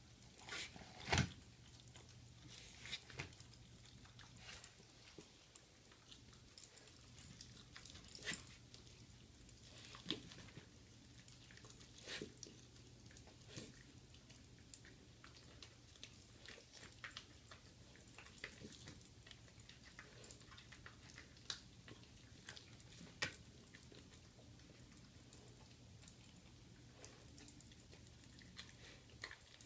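A Bichon dog chewing and tearing at a raw pork roast: irregular soft wet clicks and snaps of teeth working meat, skin and sinew, the loudest snap about a second in.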